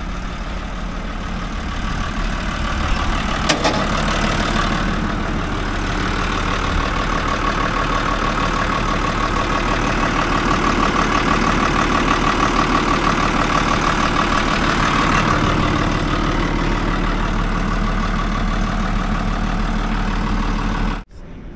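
Diesel engine of a Caterpillar D5G XL crawler dozer running steadily, heard up close. There is a sharp knock about three and a half seconds in, and the sound cuts off abruptly just before the end.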